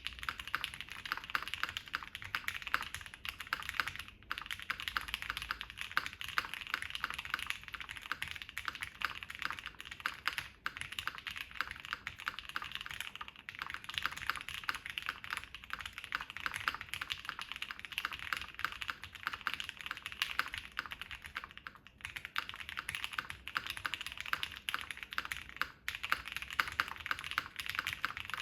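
Fast, continuous typing on an ai03 Vega custom mechanical keyboard fitted with Gateron Ink linear switches, keystrokes clacking in quick succession with a few brief pauses.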